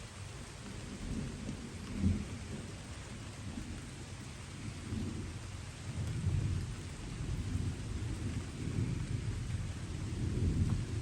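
Steady light rain falling, with distant thunder rolling low underneath, swelling and fading several times, loudest about two seconds in, around six seconds and near the end.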